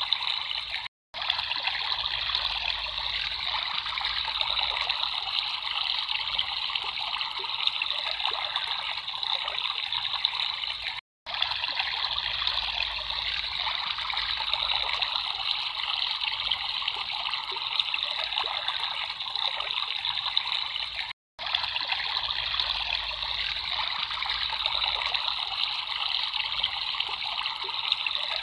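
Running water trickling and babbling steadily, like a small stream. The sound drops out into silence for a split second three times, about ten seconds apart.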